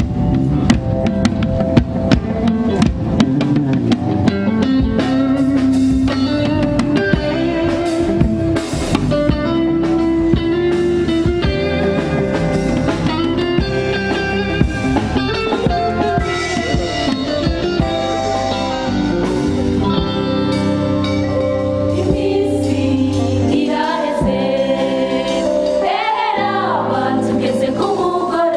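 Live gospel band playing: electronic keyboard, drum kit and electric guitar, with choir voices singing toward the end.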